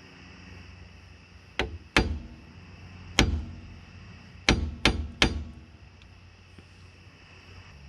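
Hammer striking the locking tabs of the rear axle nut on a hub assembly, six sharp metallic blows at an uneven pace, bending the tabs flat so the nut cannot back off.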